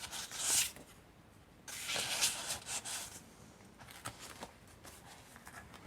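Paper rustling as the pages of a handmade junk journal are handled and turned: a short rustle near the start, then a longer one from about two seconds in, with a few soft taps.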